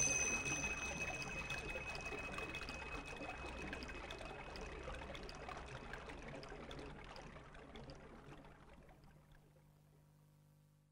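A steady rushing noise, water-like in character, fading gradually away to silence about nine seconds in. A high ringing tone from a sharp metallic clink just before dies away over the first two seconds.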